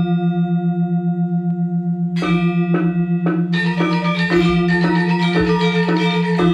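Balinese gong kebyar gamelan: a deep pulsing hum rings on under bronze metallophone notes left sounding from the last stroke. A few lone strokes come about two seconds in, then the ensemble picks up again with fast, dense playing from about three and a half seconds.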